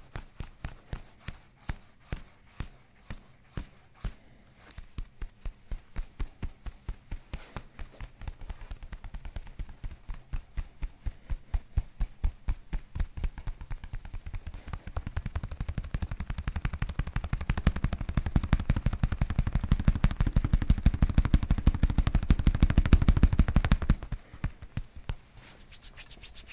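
Hands tapping rhythmically on a bare back in percussive massage: a couple of slaps a second at first, quickening and growing louder into a fast drumming that stops suddenly near the end, leaving soft rubbing of hands on skin.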